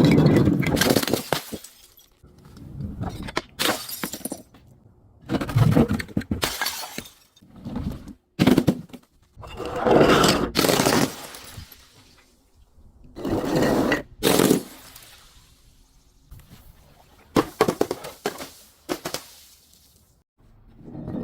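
Glass bottles breaking and shattering again and again, about eight crashes, each a sharp crack followed by a crunching, tinkling spill of glass.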